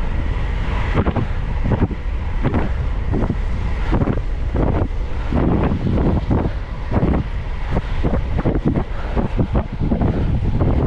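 Wind buffeting a GoPro's microphone on a fast downhill bicycle descent: a loud, continuous rumble that surges unevenly in gusts.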